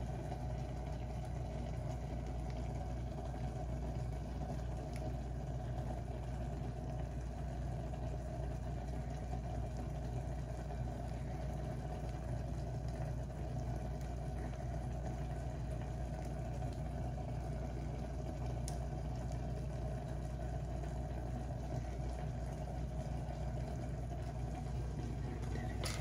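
Steady low rumble of water boiling in a small electric cooking pot with instant noodles in it, with a few faint clicks.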